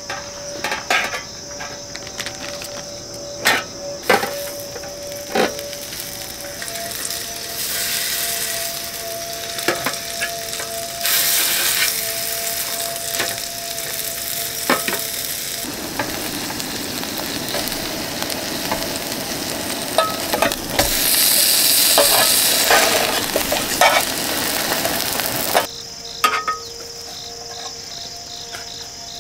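Buttered, sugared French toast sizzling in a square aluminium mess tin over a low gas flame, with metal tongs clicking and scraping against the tin. The clicks come first, then the frying grows louder in waves and stops suddenly near the end.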